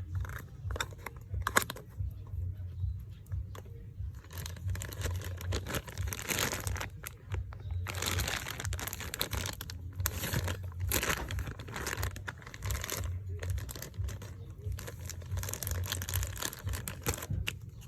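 Crinkly packaging being handled and torn open by hand: irregular crackling rustles, heaviest in the middle and again near the end.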